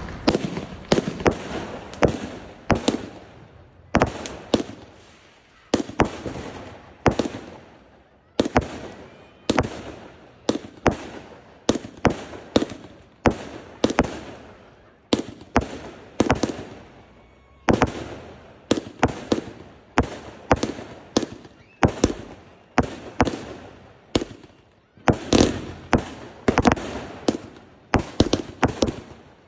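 Consumer fireworks bursting in the air: a long run of sharp bangs, about one to two a second with a few short lulls, each echoing away over about a second.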